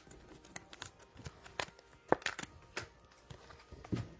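Trading cards being handled and flipped through by hand: a scatter of light clicks, taps and rustles, the sharpest about two seconds in.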